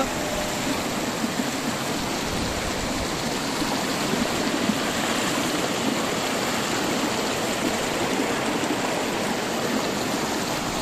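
Fast, shallow mountain river rushing steadily over rocks and stones.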